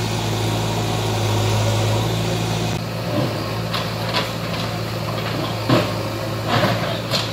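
Diesel engine of a JCB backhoe loader idling steadily with a low hum. In the second half a few short sharp sounds rise briefly above it.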